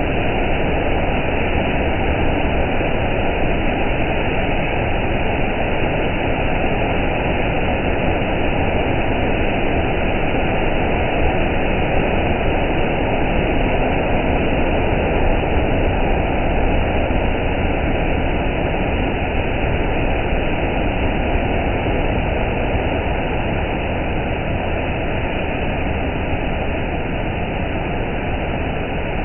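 Automatic car wash at work: water jets spraying and large rotating brushes spinning against a car, a steady rushing noise.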